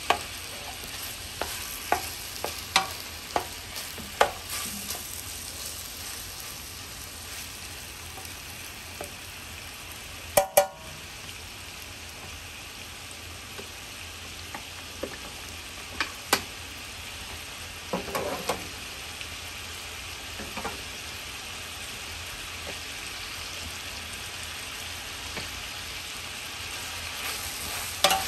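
Smoked sausage and cubed pork frying in hot oil in a pot, with a steady sizzle as the meat browns. A spoon clacks against the pot now and then as the meat is stirred, several times early on and in small clusters later.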